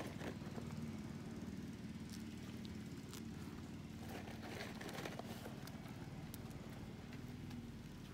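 Deer hooves clicking and scuffing on paving tiles as the animals shift about, over a steady low hum.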